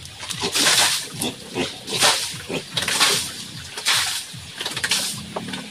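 Domestic pigs squealing and grunting at feeding time, with harsh, noisy cries about once a second.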